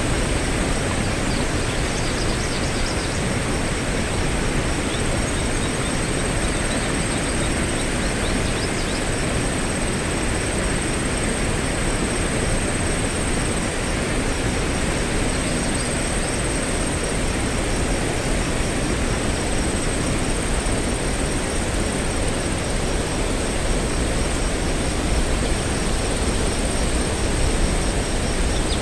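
Steady rushing of a waterfall, with a thin, steady high-pitched tone over it and a few faint bird chirps in the first few seconds.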